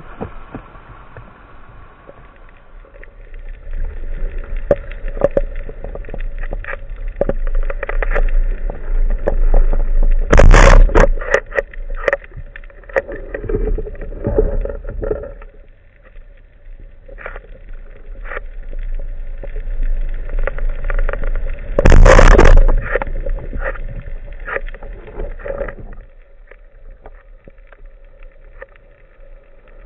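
Muffled underwater sound recorded by a camera on a speargun: rushing water with scattered clicks and knocks. There are two loud clattering bangs, one about ten seconds in and one about twenty-two seconds in.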